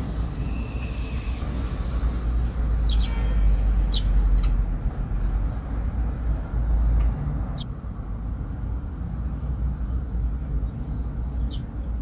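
Eurasian tree sparrows giving a few short, scattered chirps over a steady low rumble.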